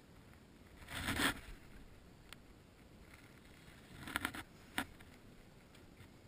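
Short rustling, scraping bursts of a jacket sleeve rubbing against the camera, about a second in and again around four seconds in, over a faint muffled background.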